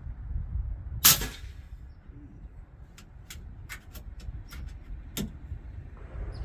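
Suppressed PCP air rifle firing a single shot about a second in. It is followed by a run of about eight short, sharp clicks over the next two seconds, the last one louder.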